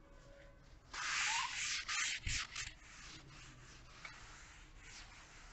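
A cloth rubbing chalk off a chalkboard in quick wiping strokes, loudest for a second or two about a second in, then fainter strokes. A soft knock comes midway.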